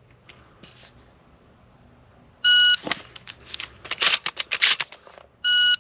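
Competition Electronics Pocket Pro II shot timer giving its start beep, then about two seconds of clicks and rattles as four shotgun shells are quad-loaded through the loading port into the magazine tube. The timer's par beep sounds three seconds after the start.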